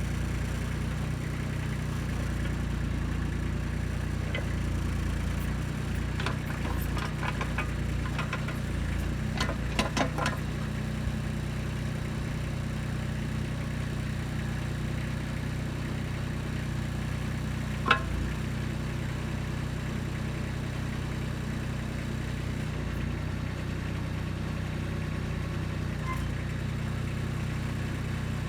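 Kubota B2630 compact tractor's diesel engine running steadily as the backhoe digs out a large rock. A cluster of clanks and rattles comes about ten seconds in, and a single sharp knock comes a little past halfway.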